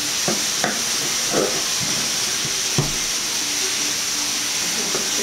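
Steady hiss, with a few soft knocks as a knife cuts through pizza dough and meets the marble countertop.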